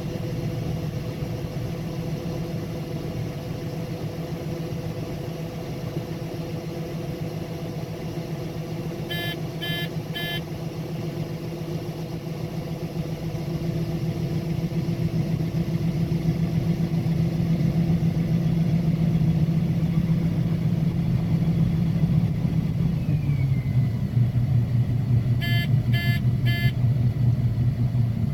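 Combine harvester running steadily while shelling corn, its engine and threshing machinery a constant drone that drops in pitch about two-thirds of the way through. A short triple electronic beep sounds twice, once near the middle and once near the end.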